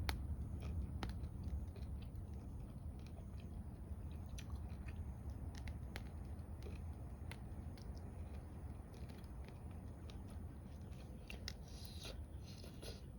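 Someone chewing food, with scattered small clicks and a few crunches over a steady low rumble.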